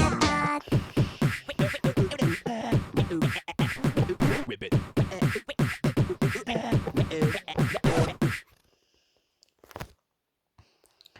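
Beatboxing: fast mouth percussion with deep, dropping kick-like hits and sharp clicks, stopping abruptly about eight and a half seconds in. Near silence with a couple of faint clicks follows.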